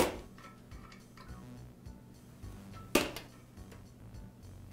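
Small metal-on-metal clicks as the detergent valve and its parts are handled and lifted out of the brass pressure washer pump. There are two sharp clicks, one at the very start and one about three seconds in, over faint background music.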